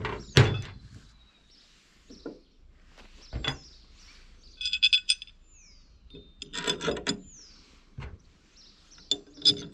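Metal clinks and knocks as a steel awning mounting bracket, bolts and nuts are handled against a roof rack and the van's roof. They come scattered, with quick rattles about five and seven seconds in. A few high, falling bird chirps.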